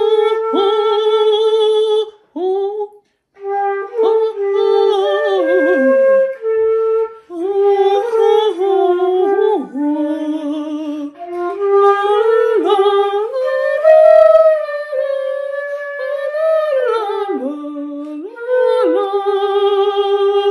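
A concert flute playing a slow melody in phrases, with a man singing along to it, the pitch sliding down at the ends of phrases.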